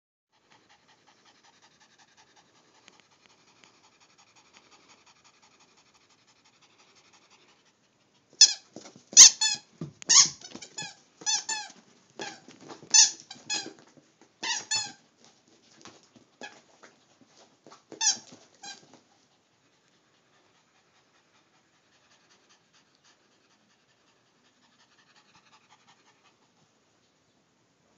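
Petmate squeaky toy squeaked over and over as a Yorkshire terrier bites it. Faint squeaks come first; from about eight seconds in there is a run of loud, rapid squeaks lasting about ten seconds. Then it goes quiet, with faint squeaks again near the end.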